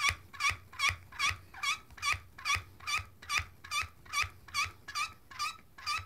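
Hand-pumped hydraulic crimping tool squeaking at each short pump stroke, about two and a half squeaks a second, with a light knock under each one. The squeak is the sign of the tool building hydraulic pressure to close the crimping dies on a copper sleeve on 5/16-inch wire rope.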